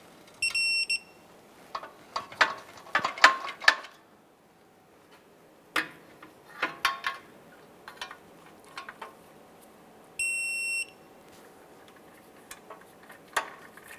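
Electronic torque wrench beeping as each catalytic converter bolt reaches the set torque of 16 foot-pounds. It gives a steady high beep about half a second long, twice: just after the start and again about ten seconds in. Between the beeps come ratchet clicks and metal taps as the socket is moved to the next bolt.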